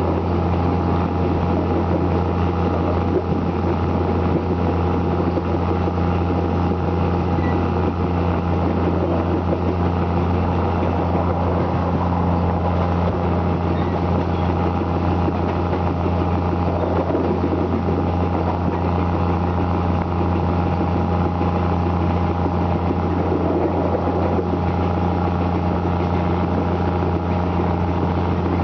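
Diesel railcar engine running at a steady, even speed, with a constant low drone heard from inside the passenger car.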